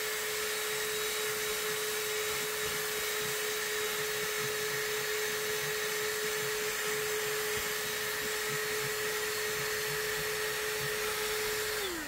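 Ryobi 18V ONE+ cordless hand vacuum running with its crevice tool on car carpet: a steady motor whine at one even pitch. Right at the end it is switched off and the pitch starts to fall as the motor winds down.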